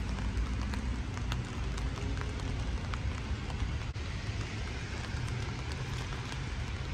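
Steady rain falling, with many faint ticks of single drops over an even hiss and a low rumble underneath.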